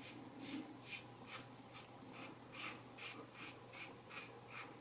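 Single-blade razor scraping through lathered stubble in short, quick strokes, about three a second, faint and scratchy.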